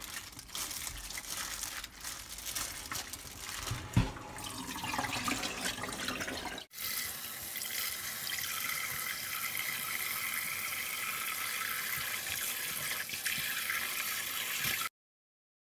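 Water sloshing as a gloved hand works raw beef short ribs around in a stainless steel bowl, with one sharp knock about four seconds in. After a break, a kitchen tap runs steadily into the bowl in a stainless steel sink as the soaking water is changed, and the sound cuts off suddenly near the end.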